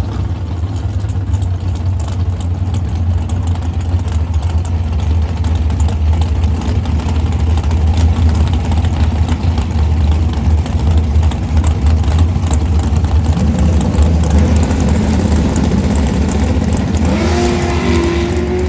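Drag-race V8 of a first-generation Chevrolet Camaro running hard with a deep, steady rumble through a burnout. It revs up, rising in pitch, near the end.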